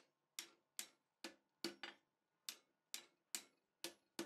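Hand hammer striking a hot steel bar over the edge of an anvil, bending it down to about 60 degrees. The blows are steady, about two and a half a second, each with a short metallic ring, and one lands as a quick double about halfway through.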